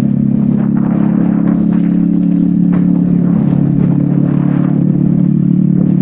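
Yamaha XSR155's single-cylinder four-stroke engine running through a DIY exhaust at a steady cruise, with short clattering noises scattered through.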